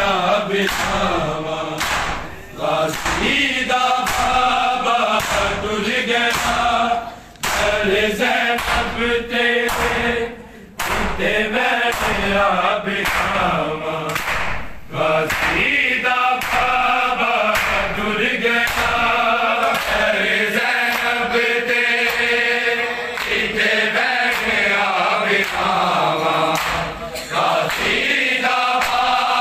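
A group of men chanting a noha, a Shia mourning lament, in unison, with the rhythmic slaps of bare-handed chest-beating (matam) keeping time under the voices.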